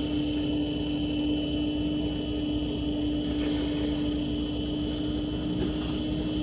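Steady vehicle hum heard from inside a stationary truck's cab, holding two constant tones, one low and one high, with no change in level.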